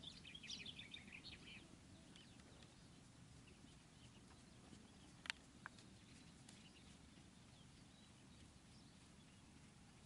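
Quiet outdoor background with small birds chirping rapidly in the first second or two. Two sharp clicks about half a second apart come a little past the middle.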